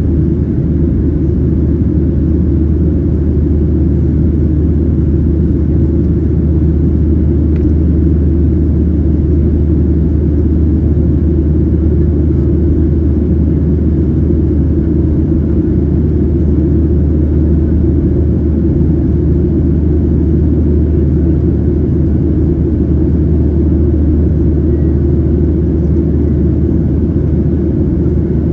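Steady low rumble of a Boeing 737-700's CFM56-7B turbofan engines and the rushing air, heard from inside the passenger cabin while climbing after takeoff.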